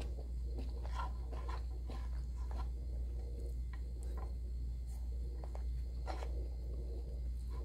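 Quiet eating sounds: fingers picking at cooked sweet potato leaves and soft chewing, heard as scattered small clicks and ticks over a steady low hum.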